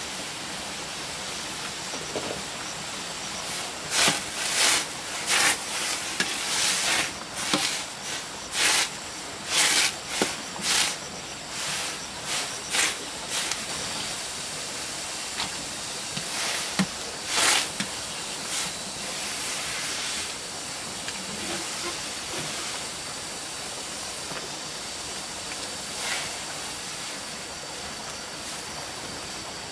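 Large wok of water at a rolling boil over a wood fire, wild greens blanching in it: a steady bubbling hiss, with a run of loud, sharp crackles and spits through the first half.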